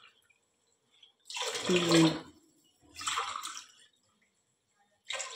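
Water poured from a plastic mug into a pressure cooker full of soaked rice, in short separate pours with pauses between, one glassful at a time.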